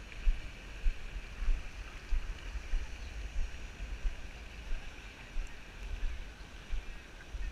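Wind buffeting a small camera microphone, an uneven low rumble with irregular gusts, over a faint steady hiss of open-air background.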